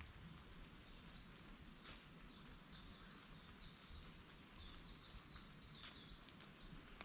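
A songbird sings one long, fast run of high chirping notes lasting about six seconds, over the steady hiss of rain falling in a forest. A couple of single drops tick about two and six seconds in.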